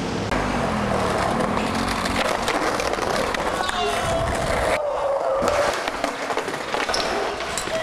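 Skateboard wheels rolling over pavement, with scattered knocks of the board and people's voices calling out.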